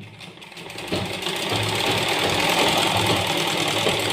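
Sewing machine starting up about a second in and stitching steadily, running with the excessive noise that comes from a machine that needs cleaning and oiling.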